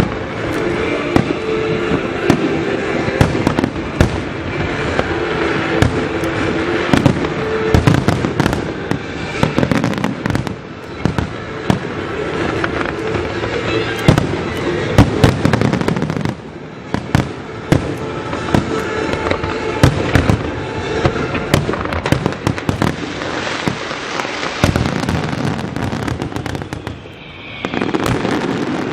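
Aerial fireworks shells bursting in rapid succession: dense bangs and crackling, thinning briefly about halfway through and again near the end.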